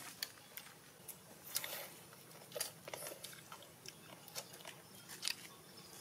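Close-up eating sounds: biting into and chewing roasted chicken, with irregular sharp crunches and mouth clicks.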